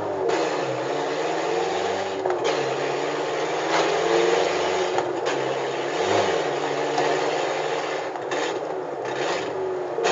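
VW Gol G4's engine and straight exhaust running noisily with the lambda sensor removed while the car drives, the engine note rising and falling several times over a steady hiss of exhaust and road noise.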